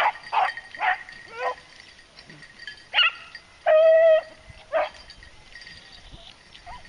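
Beagles baying while running a rabbit: a quick string of short barking cries, then a few more about three seconds in, including one long drawn-out bawl, before the baying fades off.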